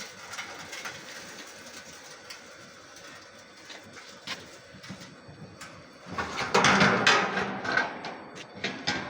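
A machine running with a steady mechanical clatter and scattered clicks. About six seconds in, the working noise gets much louder for about two seconds, then falls back.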